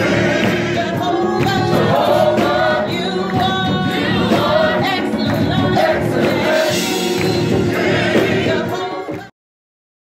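Gospel choir of men and women singing together with music, cutting off suddenly about nine seconds in.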